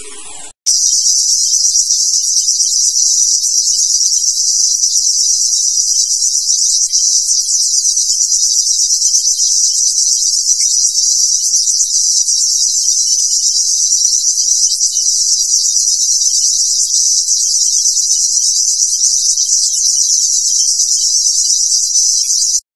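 Loud, steady, high-pitched insect chorus with a fast pulsing texture and no break. It starts abruptly about half a second in and cuts off just as abruptly near the end.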